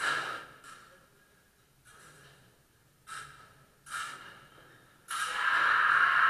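Sounds of a sabre fencing lesson: a string of about five separate sharp hits, each fading quickly, over the first four seconds, then a louder, longer noisy sound starting about five seconds in.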